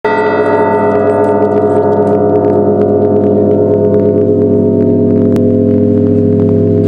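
Deep bells ringing loudly and steadily in a dense chord of tones, with light quick strikes of smaller bells above; it starts abruptly, and there is a single sharp click about five seconds in.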